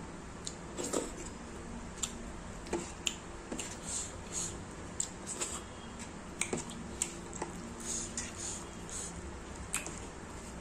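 Rice, dal and pork-fat curry squished and kneaded together by hand on a plate: wet squishing with irregular short, sticky clicks and smacks, a few a second.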